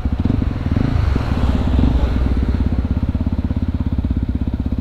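Yamaha WR155R's single-cylinder four-stroke engine running under way with a steady, even exhaust beat. A hiss of wind and road noise swells about a second in.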